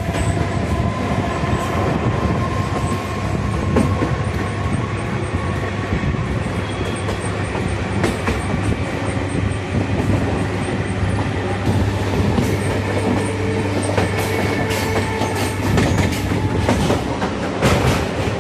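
Passenger train coach running at speed, heard from its open doorway: a steady rumble of wheels on rail with clickety-clack over the rail joints. The clatter gets sharper and denser in the last few seconds.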